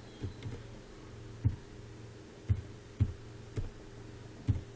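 Computer mouse and keyboard clicks, about seven irregular taps, over a steady low hum.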